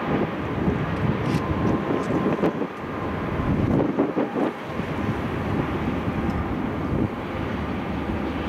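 Freight train of tank cars rolling past: a steady rumble of steel wheels on the rail.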